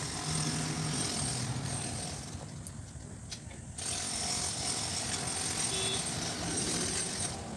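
Steady mechanical noise with a constant hum, like a motor or machine running. It drops off briefly a little over two seconds in and comes back about four seconds in.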